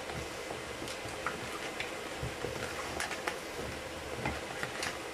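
Hands tossing salted eggplant slices in a plastic bowl: scattered soft knocks and clicks of the slices against each other and the bowl, over a steady background hiss.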